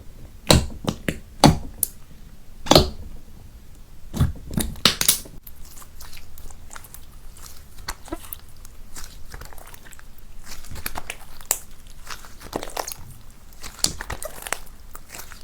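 Slime being squeezed and poked by hand, making sharp sticky clicks and pops, several loud ones in the first few seconds, then a softer, steady crackling.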